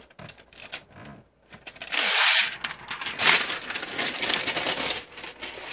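Clear plastic protective film being peeled off a laptop's glossy lid, rustling and crackling, loudest about two seconds in and again for a couple of seconds after that.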